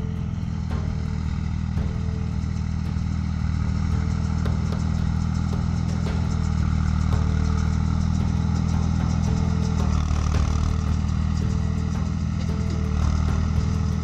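Tractor diesel engine running steadily under load while it pulls a small round baler through paddy straw, with the baler's mechanism clattering. It grows louder over the first few seconds as the tractor comes closer.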